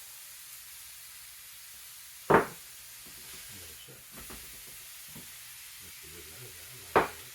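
Steaks sizzling in a frying pan, a steady hiss, broken by two sharp knocks about five seconds apart, the first about two seconds in.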